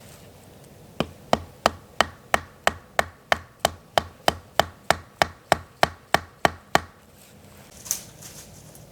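Steady hammering: about nineteen evenly spaced blows, roughly three a second, which stop after about six seconds. A single sharper knock follows about a second later.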